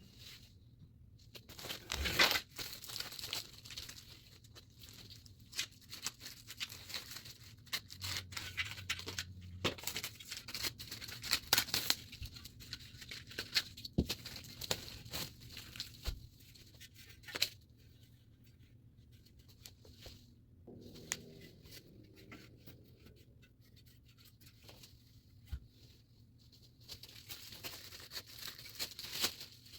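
Packaging being torn open and crinkled by hand: irregular crackling and ripping, with a few sharper snaps.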